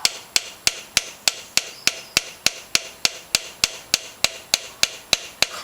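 Light, evenly paced hammer taps on a screwdriver bit, about three a second, driving the bit into a seized contact-breaker points screw head so that it bites before the screw is turned.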